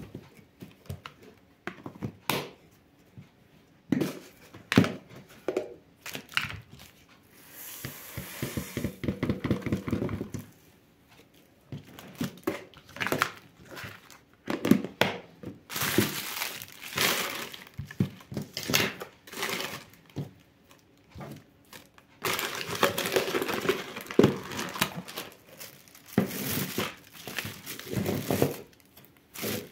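Intermittent crinkling of a paper tea-box liner and plastic packaging as loose black tea leaves are poured into a plastic canister, with knocks of plastic containers being set down on a table.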